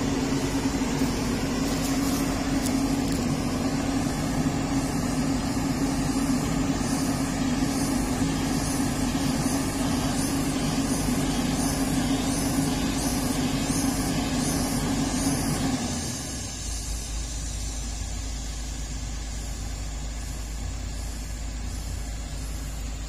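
Komatsu PC200-8 hydraulic excavator's diesel engine running steadily at working revs under hydraulic load. About two-thirds of the way through it drops to a lower, quieter running.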